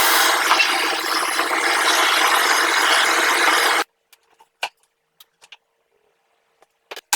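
Miter saw cutting through wood, a loud, even rushing noise that cuts off abruptly about four seconds in, followed by a few faint clicks and knocks.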